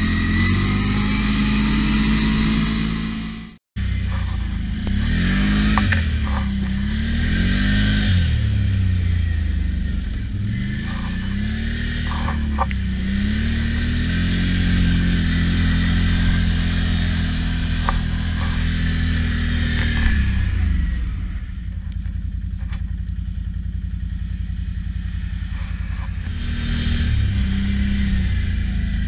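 Can-Am Outlander 650 ATV's V-twin engine running on Apache 360 tracks in snow. It revs up and down over and over, settles to a steadier lower note about two-thirds of the way through, and picks up again near the end. It opens with a few seconds of another engine-like sound that cuts off suddenly.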